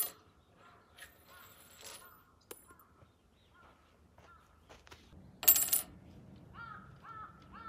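A coin dropped onto the finished walnut slab tabletop about five and a half seconds in: a short, bright metallic clink and ring. Near the end, three short calls, likely a bird.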